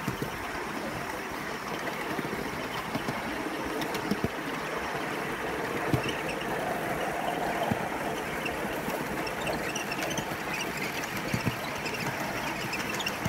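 A 3.5-inch gauge ride-on miniature train running along newly laid, not yet fastened track: a steady rolling rumble with a sharp knock every few seconds as the wheels pass over the rail joints.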